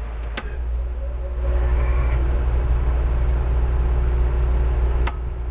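A click, then about a second later an electrically powered shop machine starts and runs steadily over a low hum, with a second click near the end. This is the load that the panel's ammeter registers at about 10 amps.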